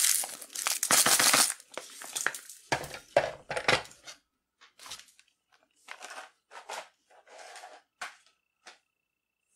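Ice cubes clattering and scraping against hard plastic as the ice-packed drum, its lid and a plastic bowl of ice are handled. The clatter is dense for about four seconds, then thins to a few short rattles and knocks.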